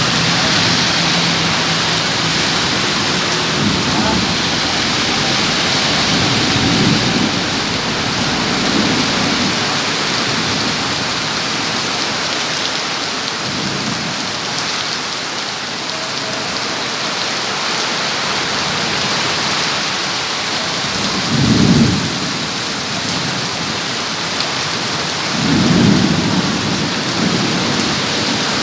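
Heavy monsoon rain pouring down steadily in a thunderstorm, with low rumbles of thunder swelling in and out, the two loudest in the last third.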